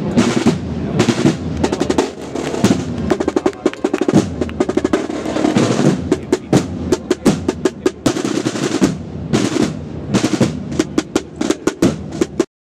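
Marching snare drums playing fast rolls and beats, which cut off abruptly near the end.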